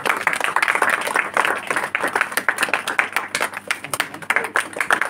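Audience of students applauding: many hands clapping at once in a steady, dense patter.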